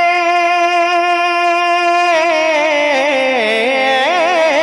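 A man's voice singing a naat without words, holding one long note for about two seconds, then breaking into wavering melismatic runs that dip in pitch.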